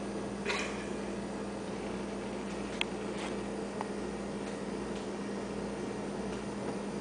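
Steady low electrical hum under an even hiss, with a short soft rustle about half a second in and a few faint ticks a little after the middle.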